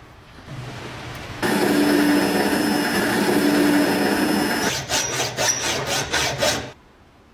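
A tool scraping and abrading the metal of a rusty lock. A steady rasping run of about three seconds is followed by about seven separate scraping strokes, and the sound cuts off abruptly near the end.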